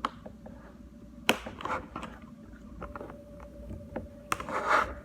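Toy packaging being handled and opened by hand: scattered clicks and taps of plastic and cardboard, a sharp click about a second in, and a burst of rustling near the end.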